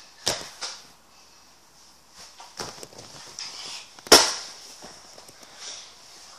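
A few sharp knocks and thumps, the loudest about four seconds in, with rustling close to the microphone as someone moves around right next to it.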